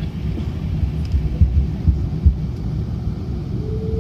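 Low cabin rumble of an Airbus A380 rolling on the ground, with a few knocks about halfway through. Near the end a steady engine tone comes in as its four Engine Alliance GP7270 turbofans begin to spool up for take-off.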